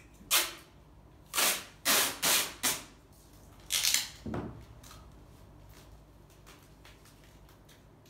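Adhesive tape pulled off its roll in short, loud rips: six in about four seconds, four of them in quick succession, followed by a duller, lower sound just after.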